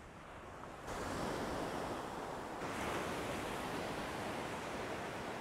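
Ocean surf breaking and washing up a sandy beach: a steady rushing wash that gets louder about a second in.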